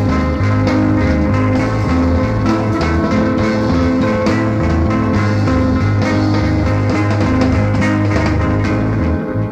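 Live rock band playing: electric guitar, bass guitar and drum kit together, with the cymbals falling away near the end.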